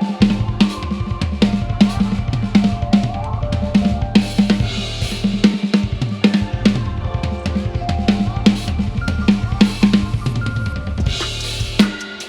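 Acoustic drum kit playing a steady groove over a backing music track, with a clap stack made of a plastic cutting board stacked on a 12-inch splash cymbal among the hits.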